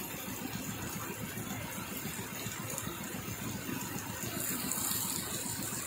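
Heavy rain pouring steadily, an even hiss with a low rumble beneath, getting a little hissier about four seconds in.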